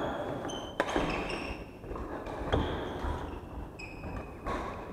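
Badminton rally: racquets strike a shuttlecock three times, sharp cracks nearly two seconds apart, with short squeaks of court shoes on the wooden floor between them.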